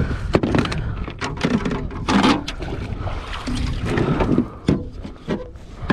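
Repeated knocks, clicks and rattles of gear and handling against a plastic fishing kayak's hull while a freshly landed bass is handled, over a steady low rumble.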